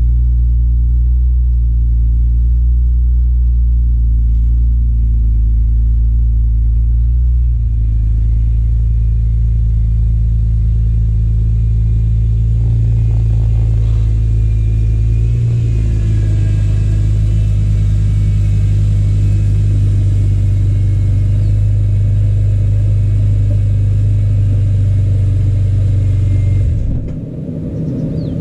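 BMW Z4 M Coupe's S54 3.2-litre inline-six idling on a cold start through its quad exhaust, a steady low burble whose idle steps down twice as the fast idle settles. Near the end the car backs out past the microphone and the exhaust sound drops off sharply.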